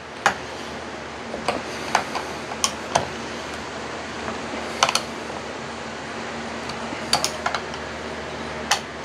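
Scattered light clicks and clinks of hand tools and small metal parts being handled during chainsaw reassembly, about nine sharp ticks at irregular spacing, over a steady low hum.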